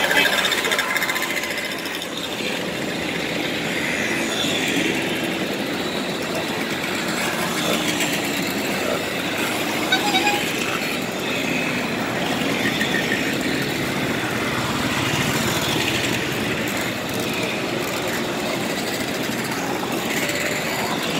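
A stream of Simson mopeds and scooters riding past, their small two-stroke single-cylinder engines buzzing together in a continuous blend, individual pitches rising and falling as each machine goes by.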